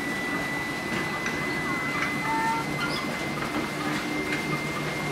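Disneyland Railroad passenger car rolling along the track: a steady running rumble with a thin, steady high whine and faint scattered clicks. A few short bird chirps come through over it.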